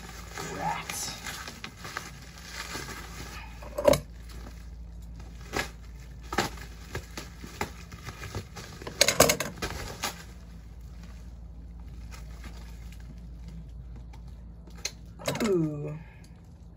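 Cardboard box and packaging being opened and handled by hand: irregular rustling and scraping with scattered sharp knocks, the loudest about four and nine seconds in.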